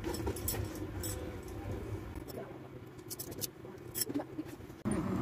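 Scattered light clicks and rustles of hands handling plastic containers and bags, over a low steady room hum.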